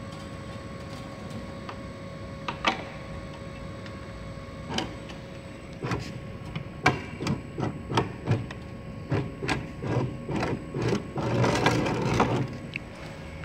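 Steel wire being worked by hand through the guide rollers of a chain link fence machine, with irregular sharp metallic clicks and knocks that come thicker from about halfway, ending in a short dense clatter near the end, over a steady hum.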